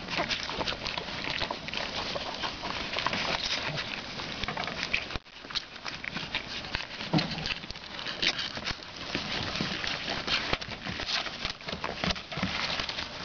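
Litter of two-week-old Boston Terrier puppies moving about on their bedding: a dense patter of small rustles and scratchy clicks, briefly dropping away about five seconds in.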